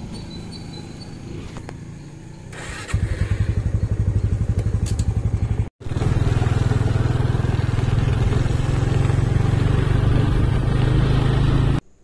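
Motorcycle engine running close to the microphone. It is quieter at first, then loud with rapid, even firing pulses from about three seconds in. After a momentary break just before halfway it runs steadily on, then cuts off abruptly near the end.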